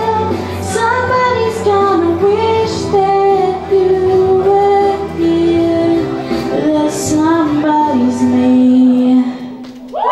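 A female voice singing a song over musical accompaniment. The last line ends on a long held note near the end, and then the music drops away.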